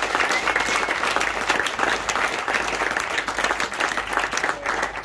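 A crowd of seated guests applauding, dense steady clapping.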